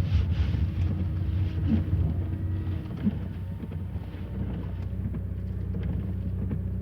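Car running on the road: a steady low engine and road rumble.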